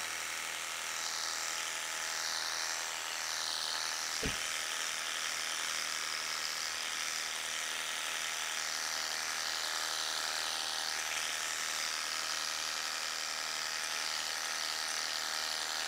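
Worx Hydroshot Nitro brushless cordless pressure washer running steadily, its pump motor humming under the hiss of snow foam spraying from a foam cannon. A single short thump about four seconds in.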